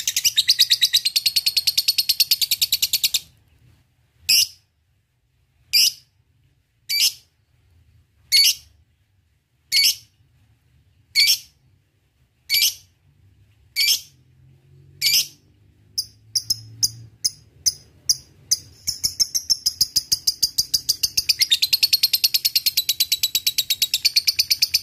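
Lovebird's long, rapid chattering trill (ngekek), which breaks off about three seconds in. Single sharp chirps follow, about one every second and a half. Then a quick run of short ticks leads back into the fast chatter for the last six seconds.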